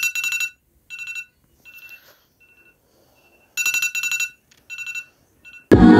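Electronic alarm beeping: short bursts of rapid high-pitched pips, roughly one burst a second, some louder than others. Loud music cuts in near the end.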